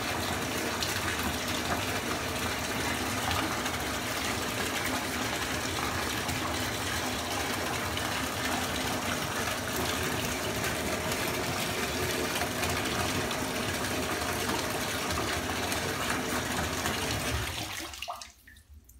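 Bathtub tap running steadily into a tub of water, then shut off near the end.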